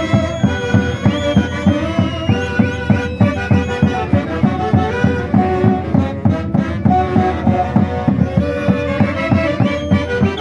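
Andean festival band music in the Santiago style, with a quick, steady low beat under wind and string melody lines and some sliding high notes.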